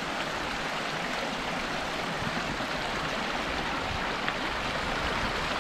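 Steady rushing of running water from a stream, an even hiss with no breaks.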